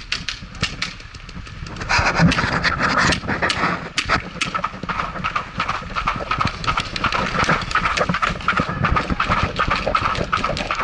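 Rapid sharp pops of paintball markers firing, and from about two seconds in, a player panting hard while running.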